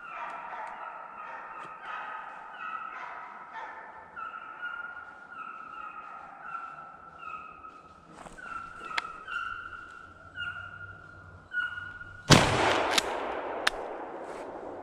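Hunting hounds baying as they run a deer, a steady string of repeated barks about two a second that stops a little over ten seconds in. Shortly after, a sudden loud burst of noise.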